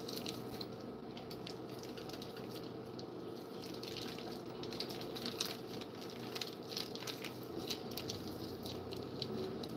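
Plastic wrapping being peeled and pulled off a chub of raw ground beef, with irregular crinkles and wet squishing of the meat as it is squeezed out.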